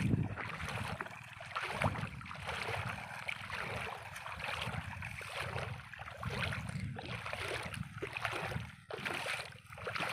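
Footsteps sloshing and splashing through shallow water and wet mud at a steady walking pace, about one to two steps a second.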